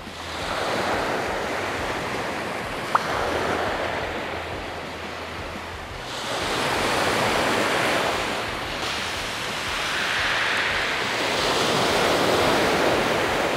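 Small waves breaking and washing up a pebbly sand beach, swelling and fading about three times. A single short click about three seconds in.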